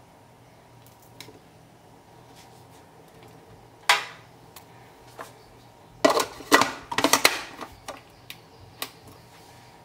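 Clear plastic lid of a food processor being set onto its bowl and fitted in place: hard plastic clicks and knocks. There is a sharp knock about four seconds in, then a quick run of clicks and knocks a couple of seconds later, with a few lighter ticks after it.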